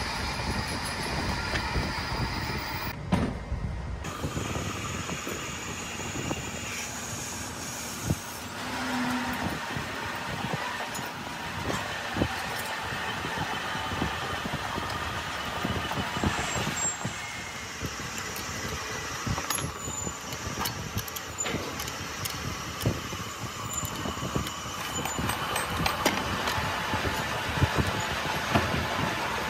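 Steady workshop din with frequent short metallic clinks and knocks from tools and cast-iron donkey water pump parts being handled and fitted together.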